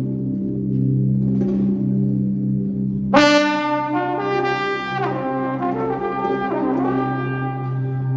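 Trombone playing live over a steady low drone: it comes in loudly about three seconds in with a bright held note, then plays further held notes that slide down in pitch a few times.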